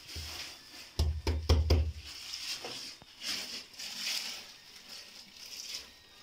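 A quick run of about five knocks or pats, about a second in, as a hand pats down the round lid pressed over the cloth on a rope-bound pot's mouth, with rustling handling noise on and off around it.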